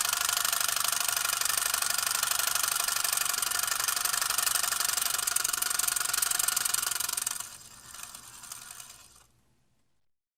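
A steady, fast mechanical ticking and rattling. It drops away sharply about seven seconds in and fades out.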